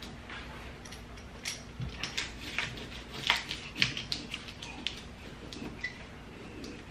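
Hands pressing and rubbing a self-adhesive foam insulation liner onto the underside of a car's trunk lid, making irregular crinkles, rustles and small taps, the sharpest a little past the middle. A faint steady hum runs underneath.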